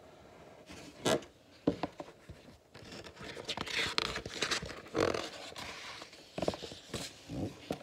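Pages of a picture book being handled and turned: paper rustling and sliding, with a few sharp flicks and taps, the first about a second in.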